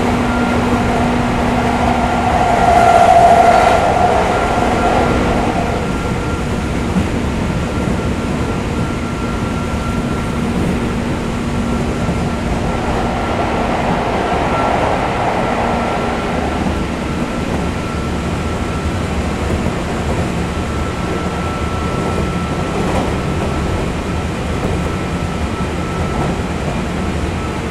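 JR series 201 electric train running, heard inside the passenger car: steady rumble of wheels and motors with a thin steady high tone. The sound swells about three seconds in, then settles.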